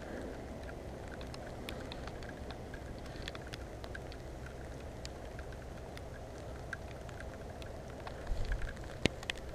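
Raindrops ticking on a mountain biker's helmet camera and visor, scattered sharp ticks over steady wind and tyre noise on a wet dirt trail, with a few low bumps on the microphone near the end.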